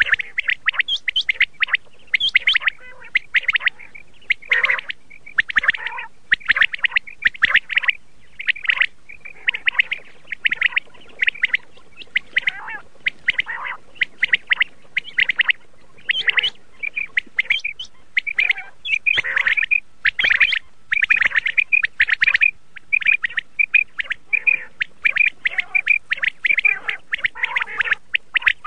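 Common quail calling: a rapid, unbroken string of short, high chirping calls, with now and then a louder, lower note among them.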